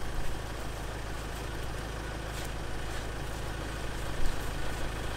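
Ford Ranger pickup's engine idling steadily, with a short thump about four seconds in.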